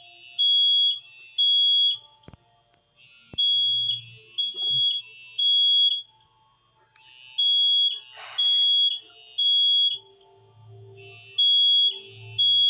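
Fire alarm sounding the temporal-three evacuation pattern: three high, steady beeps about half a second each, then a pause, the group repeating about every four seconds. A brief rustle about eight seconds in.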